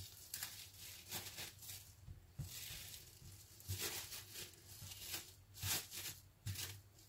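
Faint, irregular crinkling and rustling of a thin plastic bag being handled as sticky, risen bread dough is pulled off it, with a few soft knocks.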